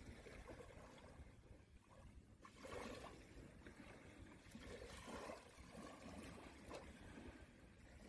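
Near silence: faint outdoor beach ambience with a low, uneven wind rumble on the microphone.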